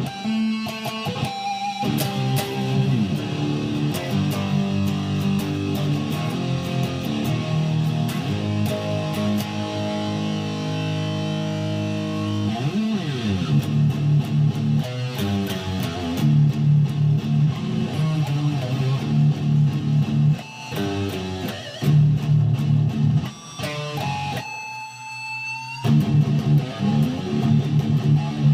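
Electric guitar playing chords and held notes, with a sliding pitch sweep about halfway through and a brief drop-out before a bright held note near the end.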